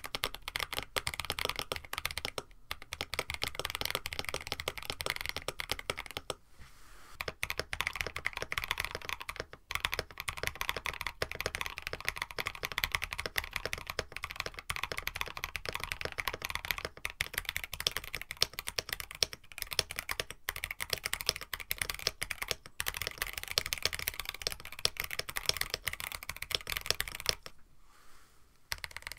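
Mechanical keyboard being typed on steadily: a KBD67 Lite with an FR4 plate and Moyu.Studios switches, a fast run of key presses and returns with two short pauses, one about a quarter of the way in and one near the end.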